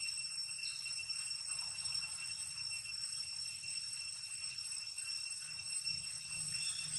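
Steady high-pitched drone of insects, several ringing tones held without a break.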